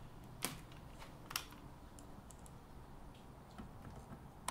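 A few light, sharp clicks and small ticks of screws and a cordless drill-driver being handled against the circular saw's metal gear housing while the cover screws are set.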